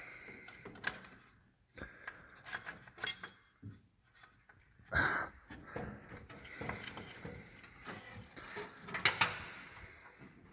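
Irregular metallic clicks, clinks and scraping as a Ford Model T's timer is taken off the front of the engine and handled, its wires and metal parts knocking together.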